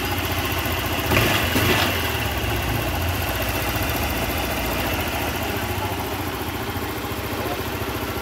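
Fuel-injected scooter engine idling steadily and evenly, its idle air control valve just reset so the abnormally high idle is gone. A brief louder noise about a second in.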